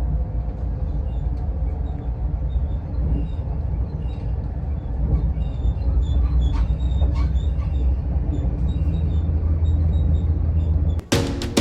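A train running: a steady low rumble with scattered light clicks and rattles.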